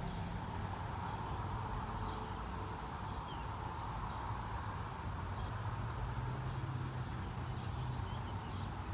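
Steady outdoor background noise: a low, even hum with a few faint, short chirps over it.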